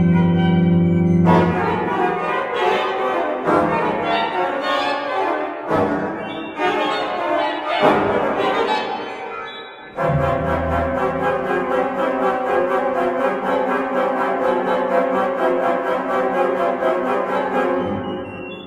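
Organ playing: a low held chord gives way to rapid, bright, bell-like high notes, then a loud full chord texture enters suddenly about ten seconds in with fast repeated notes, dying away near the end.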